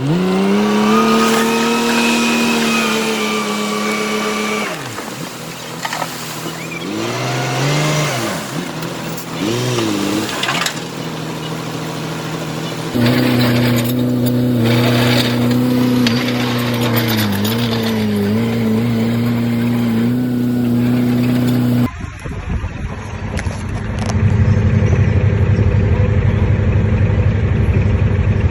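Heavy diesel earthmoving machinery engines running and revving, the pitch rising, holding and dipping with the load. The sound changes abruptly about 13 and 22 seconds in, and from then on a lower, rougher engine rumble dominates.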